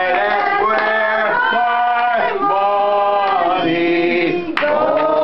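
A man singing unaccompanied, drawing out the closing line of a comic song in a few long held notes.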